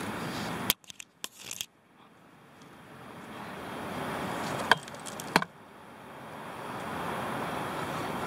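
A steady rushing outdoor background noise, cut by a few sharp clicks about a second in and twice more around five seconds. After each set of clicks the noise drops away almost to silence, then slowly swells back.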